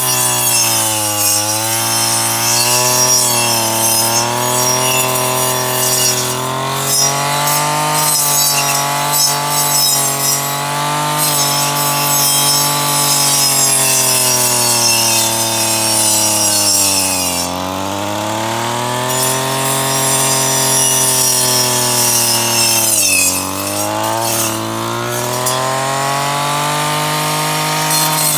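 Engine-powered brush cutter running at high revs while mowing tall grass, its engine note sagging and recovering three times under load: about a second in, just past halfway, and near the end.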